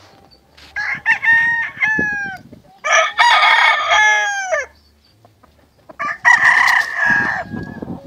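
Roosters crowing: three long crows in turn, each falling in pitch at its end.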